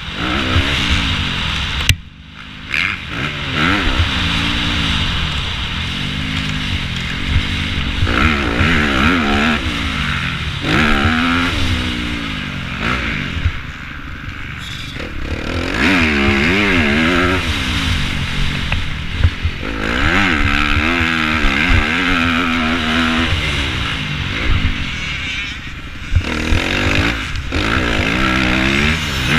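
2015 Yamaha YZ250F's single-cylinder four-stroke engine being ridden hard, its revs rising and falling again and again as the throttle is opened and shut. The throttle is chopped briefly about two seconds in before the engine picks up again.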